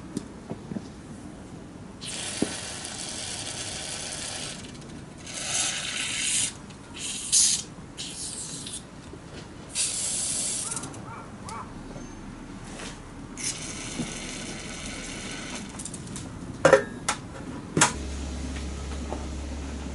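Repeated short bursts of hissing spray, each lasting one to two seconds, as carburetor parts are cleaned, with a few sharp clicks and knocks of small parts being handled near the end.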